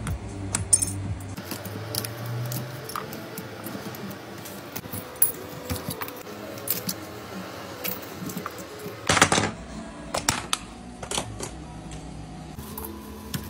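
Small clicks, scrapes and clinks of shattered iPhone back glass as the shards are pried off with a blade and picked away, with one louder rasp about nine seconds in, over background music.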